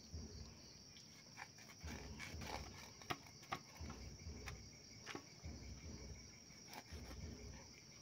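Scattered soft clicks and scrapes of goat stomach being cut into small pieces on a boti blade, over a steady high chirring of insects.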